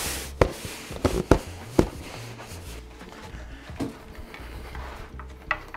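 A few sharp knocks and thumps from a cardboard shipping box and wooden table-frame pieces being handled and set down, most of them in the first two seconds, with one more near the end.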